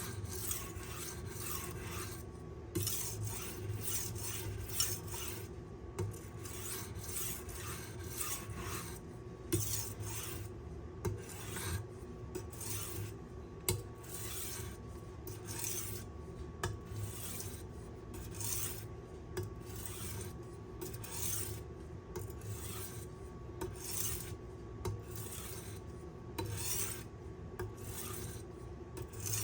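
A thin W2 steel kitchen knife being stroked across a hard Arkansas sharpening stone: a steady, even run of short scraping strokes, roughly two a second, as the edge is refined on the fine stone.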